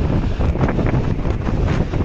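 Strong wind buffeting the microphone: a loud, rough, unbroken rushing noise, heaviest in the low end.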